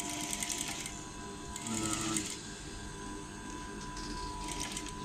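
Sewing machine stitching a curved blouse seam slowly, in three short runs of rapid ticking: starting at once, again about a second and a half in, and once more near the end, with a faint steady hum between them.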